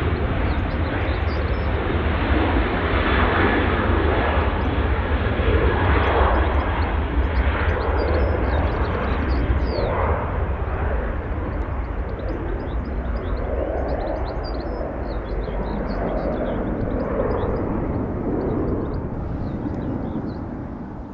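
A Boeing 737-800's CFM56-7B turbofan engines at takeoff power: a loud, steady jet noise with a deep rumble as the airliner rolls and climbs away, easing off near the end.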